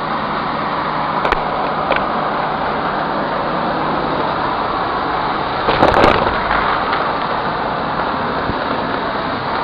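Vacuum cleaner running steadily as its wand sucks up a pile of foil, glitter and beads at the edge of a hardwood floor. A few sharp ticks come early on, then a louder burst of crunching and rattling about six seconds in as debris is drawn up the wand.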